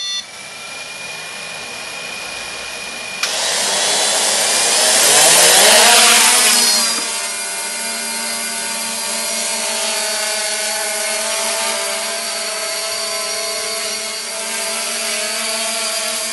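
3DR IRIS+ quadcopter's four brushless electric motors and propellers, spinning with a steady high whine at first. About three seconds in the sound turns suddenly louder and rises in pitch as the motors spool up to lift it off, loudest around six seconds in. It then settles into a steady hovering buzz of several tones.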